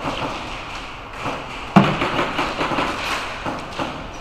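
A single sharp knock about two seconds in, the loudest sound, among a few lighter taps and clicks.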